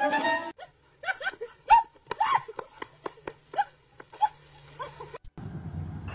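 A dog barking in a quick series of about eight short barks over roughly three seconds, after a brief loud cry at the start.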